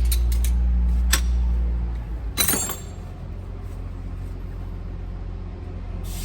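Mack MP8 diesel engine running with a steady low rumble, louder for about the first two seconds and then settling quieter and steady, with a few sharp clicks.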